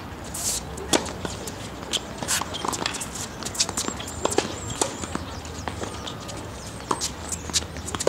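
Sharp, irregular knocks of a tennis ball being bounced on a hard court and struck with rackets during a serve and rally, mixed with footsteps on the court surface.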